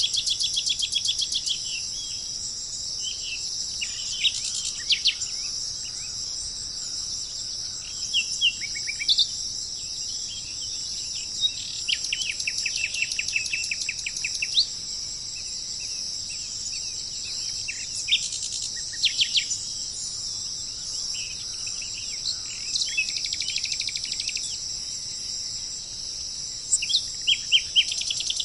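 Small songbirds chirping and singing rapid trills over a steady high-pitched drone of insects.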